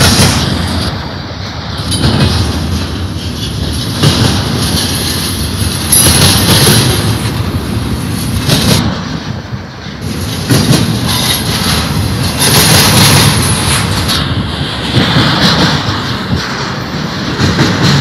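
Double-stack container train of articulated well cars rolling past close by: steady rumble and clatter of steel wheels on the rails, swelling and dropping every few seconds.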